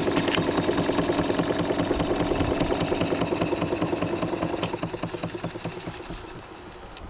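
Stuart Turner 'Victoria' model horizontal steam engine running under steam with a quick, even beat of exhaust chuffs and mechanical clatter. The beat drops in level over the last couple of seconds.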